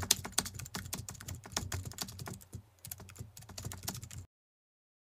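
Rapid computer-keyboard typing clicks, a typing sound effect that goes with text being typed out. The clicks stop abruptly about four seconds in.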